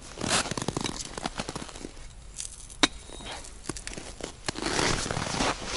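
Aluminium folding camp cot being handled: scattered light clicks and knocks from its metal frame, with one sharper click near the middle, among scratchy rustling noise that grows louder toward the end.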